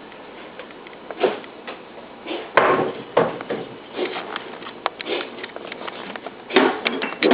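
Irregular bumps, knocks and rustling, with a few sharp clicks and two louder clattering bursts, one about two and a half seconds in and one near the end.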